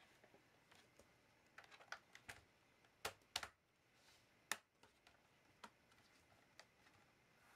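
Scattered quiet clicks and taps from a laptop being handled or keyed, with a few sharper clicks about three and four and a half seconds in.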